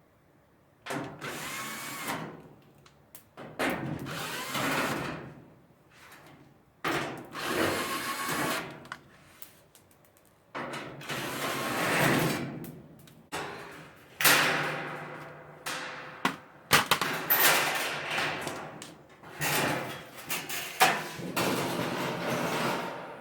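Power drill running in about eight short bursts of a second or two each, its pitch rising and falling with the motor speed, as screws are driven out to take the dryer apart.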